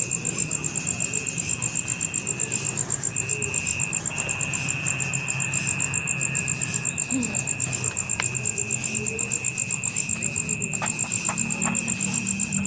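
A chorus of insects: a high, fast, steady pulsing trill, several pulses a second, over a second steady high buzz and a low background hum, with a few faint clicks near the end.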